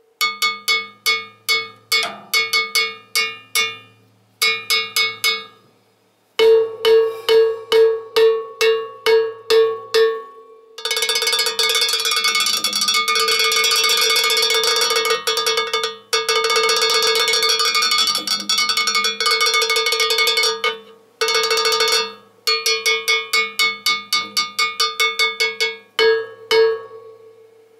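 LP 008 Rock cowbell struck with a drumstick, each hit a clear, pitched metallic clang. The strikes come in rhythmic groups separated by short pauses, with a long stretch of rapid, continuous hits through the middle.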